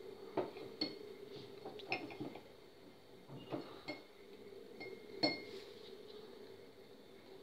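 Plastic syringe knocking against a glass tumbler while drawing up liquid gelatin: a handful of light clinks, some with a brief glassy ring, the loudest about five seconds in. A faint steady hum runs underneath.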